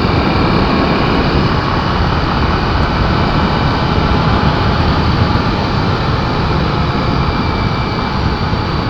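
Honda XR250 Tornado motorcycle cruising steadily, its single-cylinder four-stroke engine running with wind rushing past. The sound stays even throughout.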